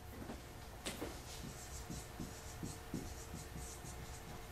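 Dry-erase marker writing on a whiteboard: a quick run of short, faint strokes.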